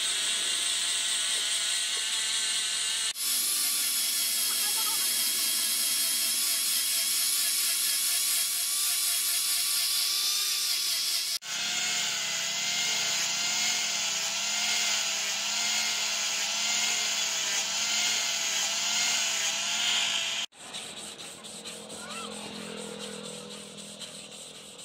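Electric angle grinder with a sanding pad running at speed against a wooden knife handle, its whine wavering a little as the pad is pressed on. It cuts off about 20 seconds in, and quieter rasping of sandpaper rubbed by hand over the handle follows.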